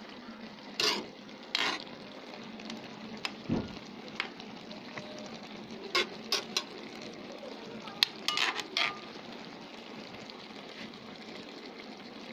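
Taro leaves in coconut milk simmering in a pot with a steady hiss, being cooked down until the oil separates. A utensil scrapes and knocks against the pot several times as it is stirred.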